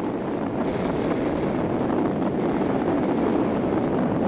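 Steady wind rush buffeting the microphone of an egg-shaped camera as a bird carries it through the air.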